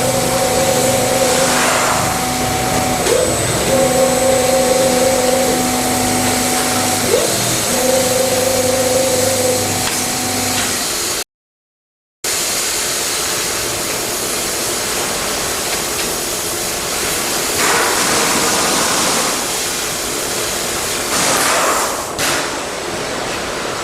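Simco LSC-2150 CNC spring lathe running, with a steady machine hum whose pitch dips briefly about every four seconds as it cycles. The sound breaks off for about a second near the middle and comes back as a steady hiss with a few short surges.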